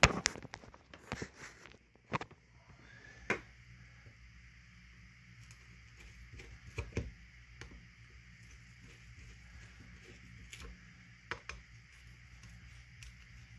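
Light knocks and scattered clicks of a hand screwdriver and small metal parts being handled on a workbench while screws are driven into a chainsaw's housing. A cluster of knocks comes first, then single clicks every few seconds.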